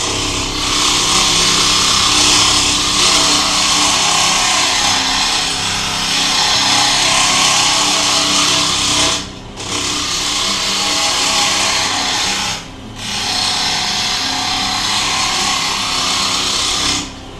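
Wood lathe running while a chisel cuts into the spinning wooden blank: a loud, steady hiss of the cut over the lathe motor's hum, broken off twice for a moment as the tool comes away from the wood.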